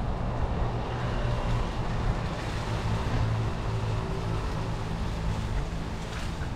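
Mountain bike rolling along a dirt trail: steady tyre noise with a low hum and occasional light rattles, mixed with wind buffeting the microphone.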